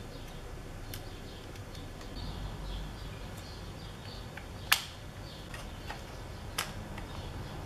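Small taps and clicks of hard plastic parts being handled on a radio-controlled truck's steering servo and linkage, with two sharper clicks about two seconds apart in the second half.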